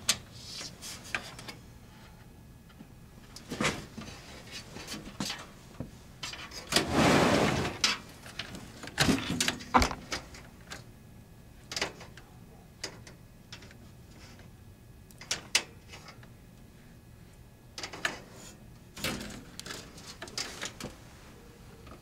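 Scattered clicks, knocks and light rattles of cables, connectors and the metal computer case being handled, with a longer scraping rustle about seven seconds in.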